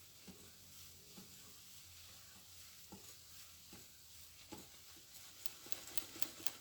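Cake batter being stirred by hand in a bowl as flour is mixed in: soft scrapes and occasional taps of the utensil, turning into quicker, sharper clicks against the bowl in the last second and a half.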